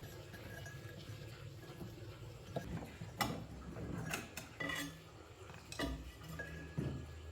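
A series of sharp knocks and clinks, about seven spread over a few seconds, from things being handled and moved about, above a steady low hum.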